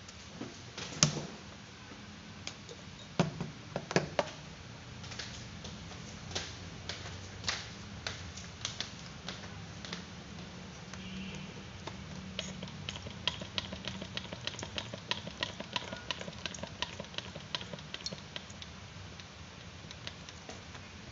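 Hands handling small hard objects: a few sharp knocks and clicks in the first seconds, scattered clicks, then a long run of quick light ticks and taps over a low steady hum.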